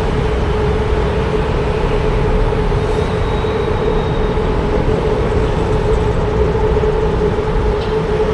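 A vehicle running steadily: a loud, even rumble with a constant hum held throughout.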